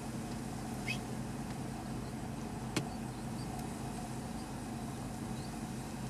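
Steady low hum and rumble of background noise, with a faint short high chirp about a second in and a single sharp click near the middle.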